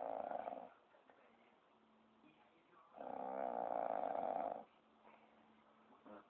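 Snoring in slow, regular breaths. One snore trails off just after the start, and a second long snore begins about three seconds in and lasts about a second and a half.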